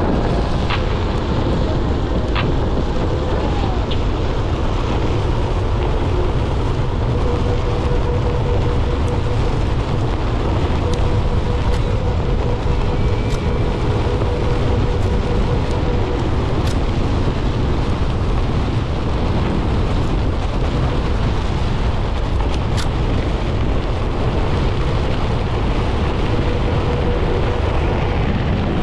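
Wind rumbling on the microphone as a Onewheel GT-S rolls along a dirt path, with a faint steady whine from the board's hub motor for stretches and a few light ticks.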